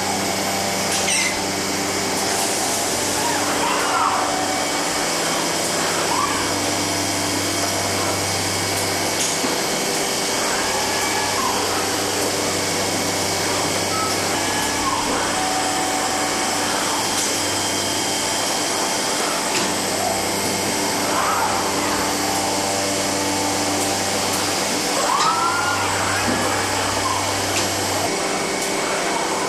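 Automated palletizing line running: a steady mechanical hum of motors and conveyors, with a motor whine that rises and falls in pitch every few seconds as the robot arms and gantries move.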